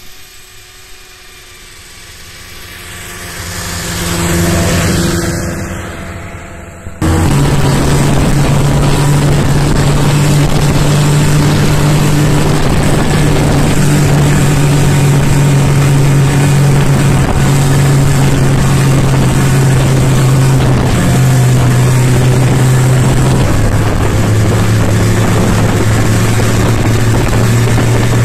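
A snowmobile approaches and passes, its engine growing louder and then fading. About seven seconds in, the sound cuts abruptly to a snowmobile engine heard from on board, running loud and steady, its pitch stepping down slightly twice near the end.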